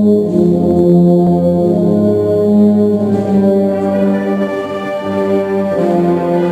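Wind band with full brass playing the slow opening of a Spanish processional march: sustained brass chords, each held about a second before moving to the next.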